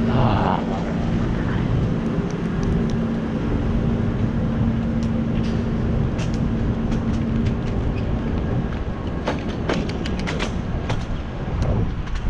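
Bicycle riding noise picked up by a bike-mounted camera: steady tyre and wind rumble, with a steady hum through the first half and scattered clicks and rattles in the second half.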